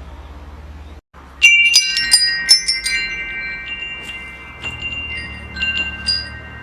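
Wind chimes ringing: a brief gap, then a cluster of strikes about a second and a half in whose clear tones ring on, and a few more strikes near the end, over a low steady rumble.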